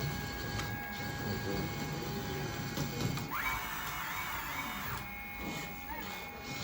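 LESU 1/14 RC hydraulic excavator's hydraulic pump and motors running with a steady whine. A louder whirring starts about three seconds in and stops about two seconds later as one of the machine's functions is worked.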